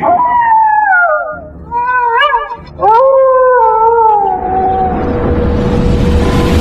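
A cat yowling in three wavering wails that fall in pitch, the last one long, used as a horror sound effect. A hiss like rain builds up near the end.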